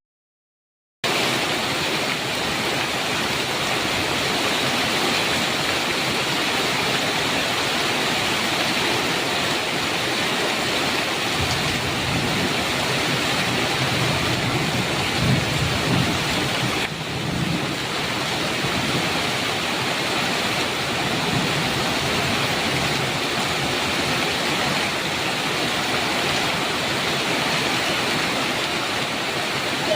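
Heavy rain falling steadily on a metal roof, a dense even hiss, with a low rumble of thunder swelling and fading in the middle. The first second is cut to silence before the rain comes in.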